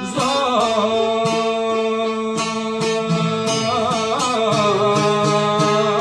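A man singing an Albanian folk song over a strummed long-necked lute, with a violin playing along. The voice holds long, wavering notes over a quick, steady strum.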